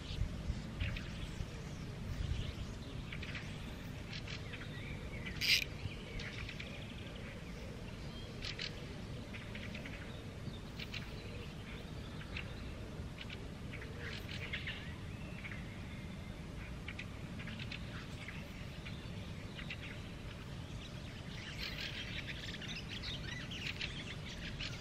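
Songbirds chirping and singing, many short calls throughout, over a steady low rumble. A brief, sharper sound stands out about five and a half seconds in.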